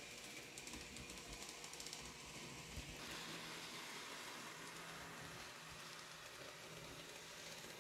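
Faint, steady running noise of a Kato N-scale Union Pacific Big Boy model locomotive rolling along the track: a soft hiss of motor and wheels on the rails, with light fast ticking early on.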